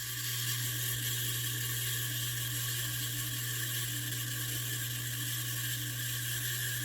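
1984 Casablanca Delta ceiling fan running, a steady motor hum under an even whir.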